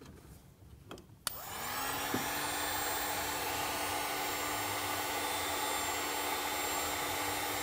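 Handheld electric heat gun switched on with a click about a second in, its fan motor spinning up quickly and then blowing steadily, heating insulated crimp connectors to shrink them onto the wires.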